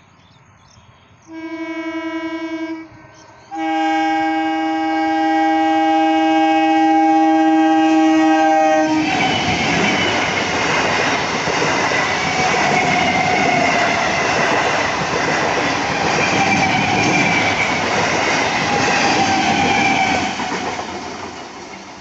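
EMU local train sounding its horn, a short blast and then a long one of about five seconds. It then passes at speed with the wheels clattering over the rails and a faint whine, and the noise drops off near the end.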